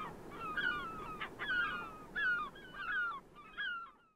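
Gulls calling: a quick run of short cries, each falling in pitch, about two or three a second, over a low steady rushing background. The sound stops abruptly near the end.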